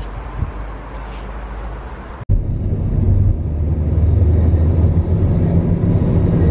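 Steady low drone of road and engine noise inside a moving car, cutting in abruptly about two seconds in. Before it, a quieter steady outdoor hiss.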